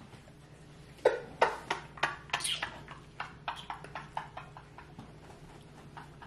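A man laughing hard in a run of short, breathy bursts, loudest at first and fading and slowing toward the middle.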